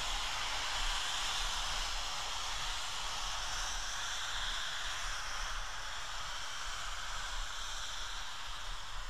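Steam locomotive letting off steam: a steady hiss that slowly fades.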